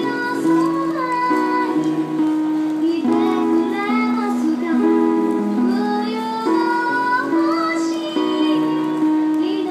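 A woman singing into a handheld microphone over instrumental accompaniment, with long held notes.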